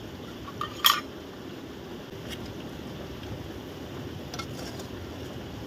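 Metal kitchenware clinking on a bowl: one sharp clink about a second in, then a few faint light taps, over a steady background hiss.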